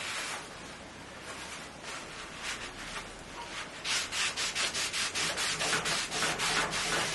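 Paper scrubbing the cast iron table of a bandsaw with methylated spirits to lift oily gunk. A few scattered strokes at first, then brisk back-and-forth rubbing of about four strokes a second from about four seconds in.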